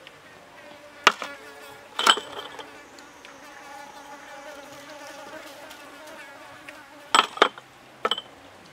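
A fly buzzing with a wavering hum, broken by a few sharp clinks of small ceramic cups being handled: one about a second in, another a second later, then a quick pair and a last one near the end.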